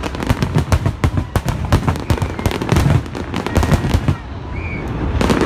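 Fireworks display: a rapid, dense run of aerial-shell bangs and crackling pops with deep booms under them. The barrage eases briefly about four seconds in, then picks up again near the end.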